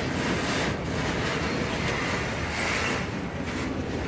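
Covered hopper freight cars rolling past on steel rails: a steady, even noise of wheels on track.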